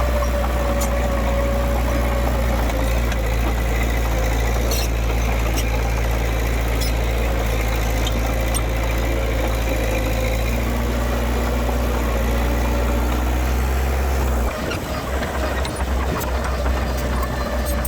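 Diesel engine of heavy earthmoving machinery running steadily, a deep drone with a faint whine above it and a few light clicks. About fourteen seconds in the drone stops abruptly and gives way to a rougher, uneven rumble.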